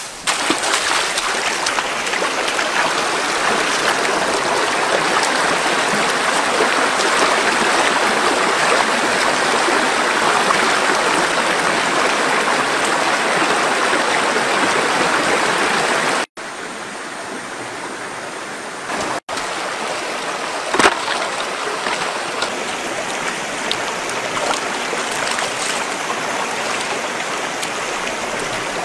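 Shallow rocky stream running with a steady rush of water, louder in the first half. One short sharp knock comes about three-quarters of the way through.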